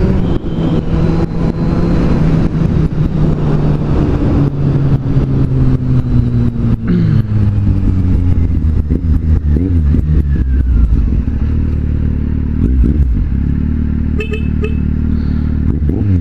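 Kawasaki Z750's inline-four engine heard from the rider's position, its pitch falling as the bike slows over the first seven seconds or so, then running low and steady. Frequent clicks of wind buffeting the microphone run throughout.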